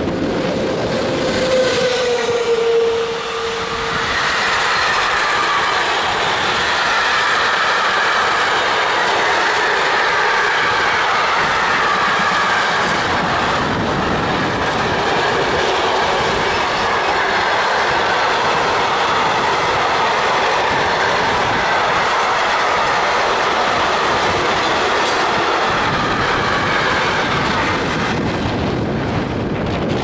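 EU07 electric locomotive passing close, a steady whine from it dipping slightly in pitch as it goes by in the first few seconds. Then a long train of loaded container wagons rolls past with a loud, even wheel-on-rail noise that eases near the end as the train draws away.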